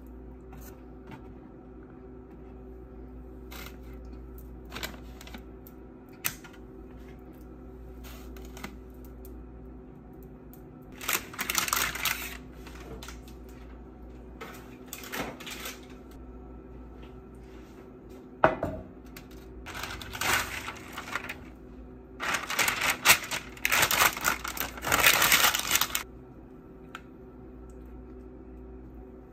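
Kitchen handling sounds: scattered light clicks and clinks, and three loud spells of crackly rustling like paper being handled, the last and loudest lasting about three seconds, over a steady low hum.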